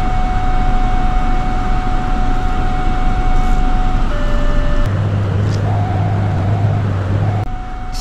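Car reversing on a steep slope: engine and road noise under a steady parking-sensor warning tone, which stops about four seconds in and comes back near the end. A low engine hum swells for a couple of seconds in between.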